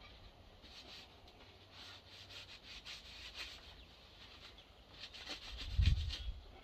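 Faint, scratchy rubbing of a cloth wiping oil into a scorched red elm axe handle, with one dull low thump near the end.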